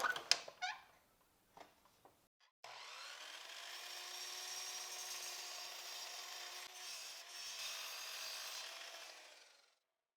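Miter saw running and cutting through a wooden board for about seven seconds, with a steady motor tone under the cutting noise, then stopping. A few light knocks come just before, as the board is handled.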